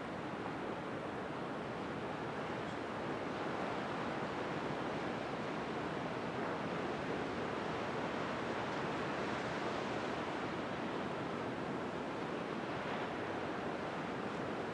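Ocean surf breaking on a sandy beach, a steady rushing wash of waves.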